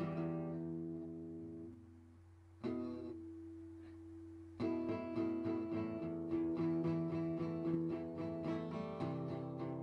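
Acoustic guitar music: a chord rings out and fades, a single chord is struck about three seconds in, and steady strumming starts again about halfway through.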